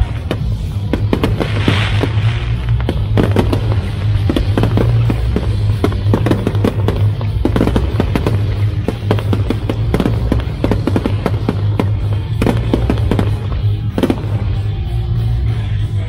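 Fireworks display going off to music: many sharp bangs and crackles, coming thick and fast through the middle stretch, then a few single louder reports near the end, over the music's steady bass.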